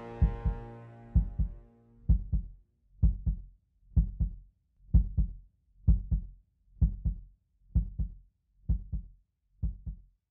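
Heartbeat sound effect: pairs of low thumps, about one pair a second, growing fainter toward the end. Under the first two seconds a held music chord fades out.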